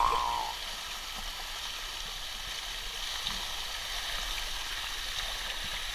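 Water from a pool's rock waterfall pouring and splashing steadily into the pool. At the start, the tail of a loud pitched sound fades away.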